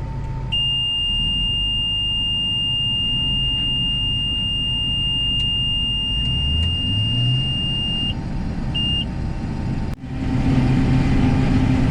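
A farm machine's engine running, with a long, steady high warning beep lasting about seven and a half seconds, then one short beep. The engine speeds up briefly before the long beep ends, and the machine gets louder near the end.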